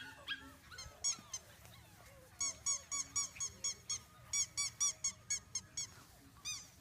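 Five-week-old Labrador retriever puppies yipping: short high-pitched yelps coming about four a second in two quick runs, as the puppies squabble in play.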